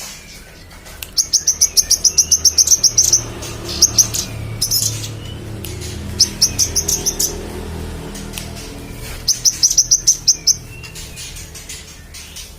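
Manggaran bird singing in fast runs of sharp, high repeated notes, about eight or nine notes a second. The first run lasts about two seconds; three shorter runs follow about three, six and nine seconds in.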